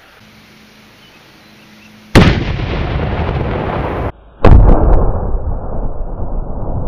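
Homemade black-powder salute cannon, loaded with about 1500 grains of Pyrodex, going off: a sudden loud blast about two seconds in with a long rolling rumble after it. A second blast follows about four and a half seconds in.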